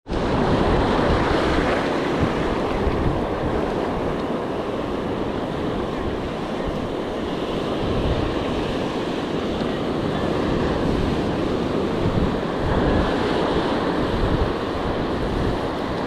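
Surf washing in around the shoreline, with wind buffeting the microphone.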